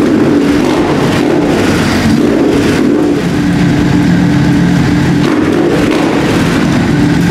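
Triumph Scrambler's parallel-twin engine running at a steady idle after a fresh oil and filter change, circulating the new oil before the level is checked on the sight glass.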